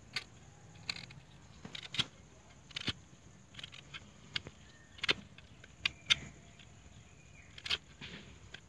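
Small pocket knife blade scraping and gouging wood out of the hollow in a round wooden slice: short, sharp scrapes and clicks at an uneven pace, about one a second.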